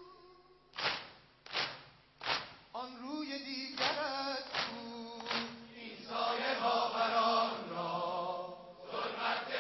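A large crowd of mourners beating their chests in unison in sineh-zani, about one beat every three-quarters of a second. Sung lamentation comes in from about three seconds in and swells into many voices chanting together in the second half.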